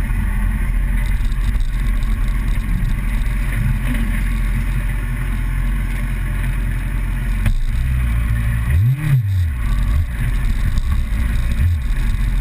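Vehicle engine running steadily under wind and road noise, as heard from an onboard camera. There is a sharp knock about seven and a half seconds in, and about nine seconds in the engine pitch rises and falls quickly.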